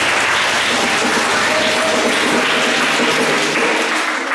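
A roomful of children clapping and applauding, a dense, even clatter of many hands. A few voices call out in the middle.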